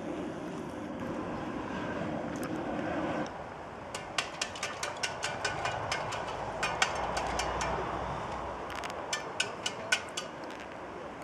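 Propane roofing torch burning steadily while a bitumen membrane is heated, with a run of sharp, irregular clicks from about four seconds in.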